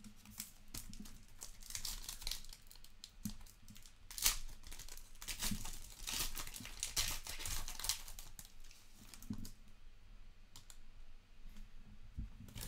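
Foil wrapper of a trading-card pack being torn open and crinkled by hand, a dense crackling for about nine seconds that thins to a few light clicks near the end.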